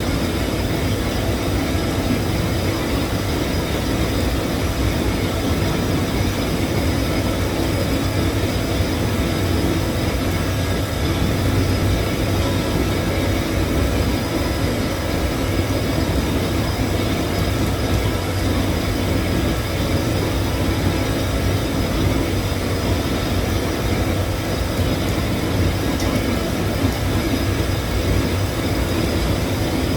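Steady hum and rumble of submerged-arc welding on a drum shell, running evenly without a break.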